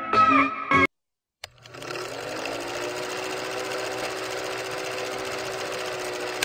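Film projector sound effect: a steady, rapid mechanical clatter that starts about a second and a half in, after a short snatch of guitar music and a click.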